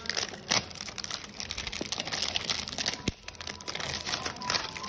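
Clear plastic shrink-wrap crinkling and tearing as it is pulled off a phone box: dense crackling with a few sharp snaps.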